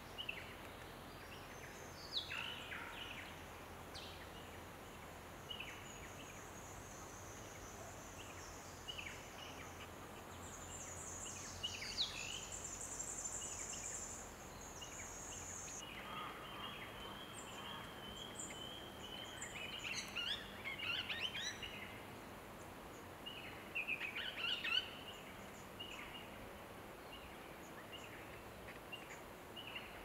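Swift parrots calling in a eucalyptus canopy: scattered short, high chirps that fall in pitch, bunching into busier chattering bursts about halfway through and again later. A thin, steady, very high trill runs under the first half and stops abruptly.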